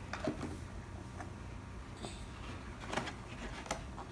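Faint scattered rustles and light clicks of a small toy blind pack being handled as a child tries to open it.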